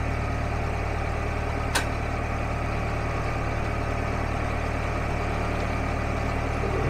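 Narrowboat engine running steadily at low revs, a constant low hum. A single short click about two seconds in.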